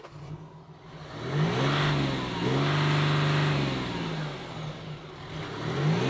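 2023 Ford Ranger's 3.0-litre turbodiesel V6 revved while stationary. It rises from idle twice, holding each rev about a second before dropping back, and a third rev begins near the end. Its sound is called nice and premium.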